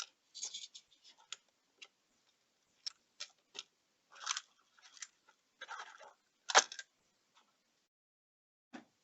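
Plastic cover of a water level monitor being refitted and screwed down by hand: scattered clicks and scrapes of plastic and screws, with one sharper knock about six and a half seconds in.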